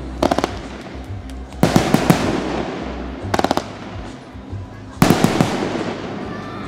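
Aerial fireworks shells bursting in four groups of bangs, with crackling reports in each and a trailing echo. The bursts near two and five seconds in are the loudest, and a quick run of sharp cracks comes about three and a half seconds in.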